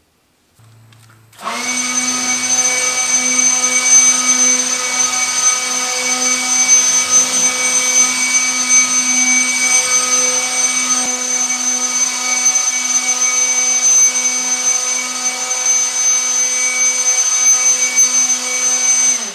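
Ryobi 18-volt cordless leaf blower running at a constant speed: a steady low motor hum under a high fan whine and rushing air. It starts about a second and a half in and cuts off abruptly at the end.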